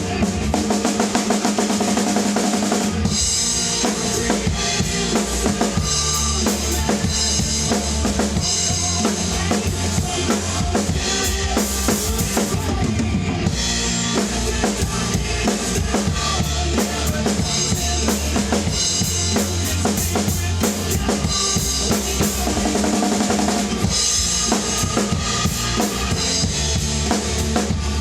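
Acoustic drum kit played along to a rock song recording: a driving bass drum and snare beat, with cymbals coming in strongly about three seconds in.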